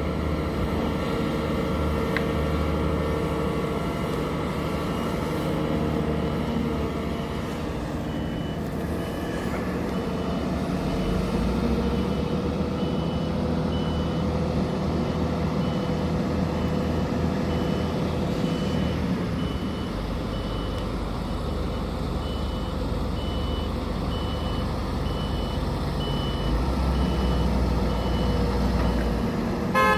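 Heavy diesel dump truck engine running, with its reversing alarm starting about eight seconds in and beeping roughly once a second as it backs up.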